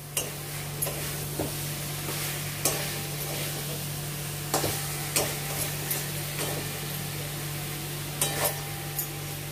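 A spatula stirring and scraping spiced chicken masala in a kadai as it fries, with irregular scrapes and clinks against the pan over a steady sizzle.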